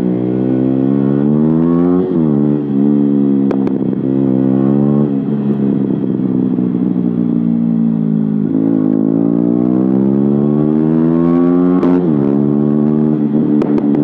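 KTM 125 Duke's single-cylinder four-stroke engine through an Akrapovic exhaust with the baffle removed, accelerating through the gears: the pitch climbs and drops back at each upshift, about 2, 5 and 12 seconds in, with a steadier stretch in the middle. A few sharp pops come through, mostly near the end.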